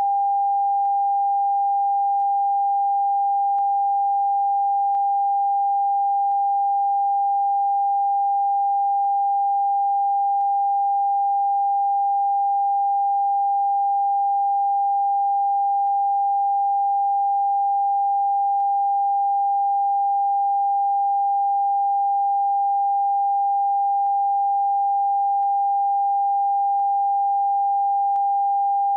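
TV end-of-broadcast test tone: one steady, unbroken sine-wave tone at a single mid pitch, played with the test card.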